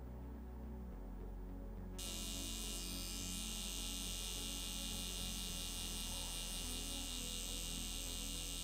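A low steady hum, joined about two seconds in by the steady, even buzz of a permanent-makeup tattoo pen running as its needle works pigment into the lip through a layer of lip balm.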